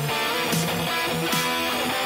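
Background music: strummed guitar with a steady beat.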